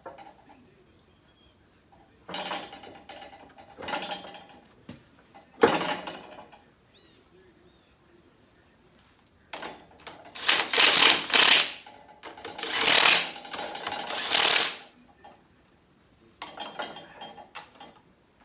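Metal clutch parts clanking as they are set on a flywheel, then a cordless driver running in two long rattling bursts a little past halfway, spinning in the bolts that hold the clutch pressure plate to the flywheel. A few light metal clinks near the end.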